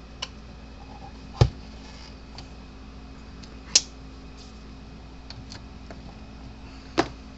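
Irregular clicks and knocks of fence-charger parts being handled as the transformer is fitted back onto the circuit board. A light click right at the start, then three sharper knocks about a second and a half, four, and seven seconds in, the first the loudest, over a steady low hum.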